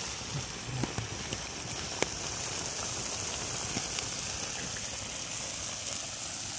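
Goat tripe curry simmering and sizzling in a steel pan over an open wood fire: a steady hiss, with a few sharp crackles from the burning wood.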